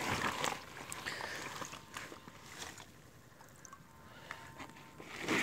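Faint rustling of a woven plastic sheet being handled over a paddy heap, with a few scattered light ticks; louder at the start, quieter through the middle.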